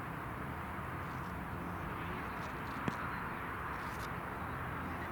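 Steady outdoor background noise, like wind and distant ambience on the microphone, with one sharp knock a little past halfway.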